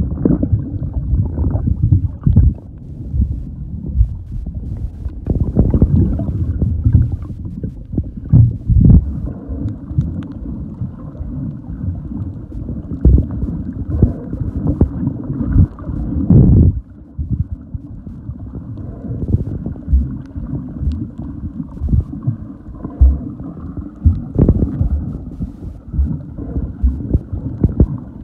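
Muffled underwater noise picked up by a submerged camera: a low, dull rush of moving water with irregular thumps and knocks against the housing.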